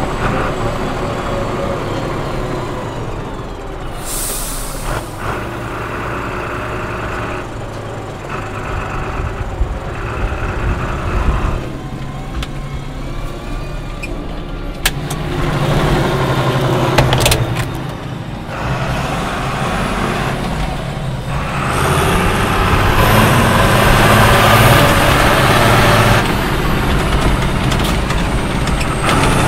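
Case CS 150 tractor's diesel engine running under load with a slurry tanker, heard from the cab, its note rising and falling and loudest near the end. A short hiss sounds about four seconds in.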